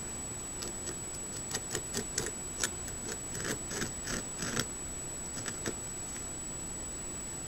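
A beaver gnawing a tree trunk: a run of short, sharp clicks and crunches as its incisors bite into the wood, irregular at about two to three a second, stopping about two seconds before the end.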